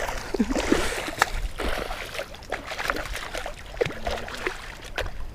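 Water splashing and trickling beside a kayak, with scattered sharp knocks and clicks; the splashing is busiest in the first second or so.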